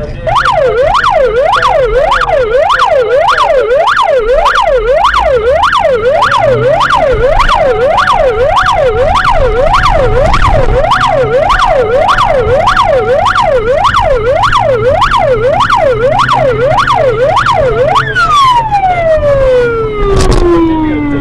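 Electronic siren in a fast yelp, its pitch rising and falling about one and a half times a second. Near the end it winds down in one long falling tone.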